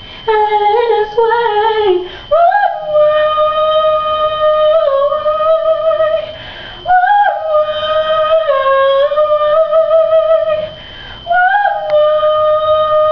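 A woman singing without words: a few short sung notes, then three long held notes, each sliding up into the pitch at its start.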